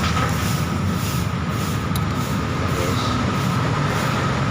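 Steady low rumble of road traffic passing on a main road, with a thin steady whine above it.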